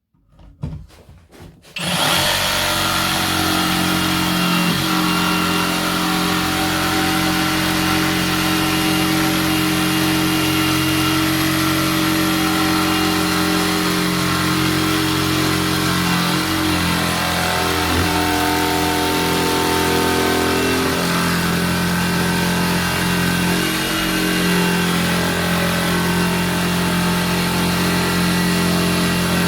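Erbauer EJS 18Li 18V cordless jigsaw starting about two seconds in and then cutting steadily through a 40 mm kitchen worktop for a sink cut-out.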